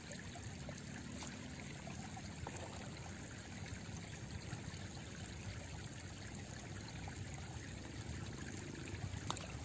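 Steady rushing of river water, with a few small clicks near the end.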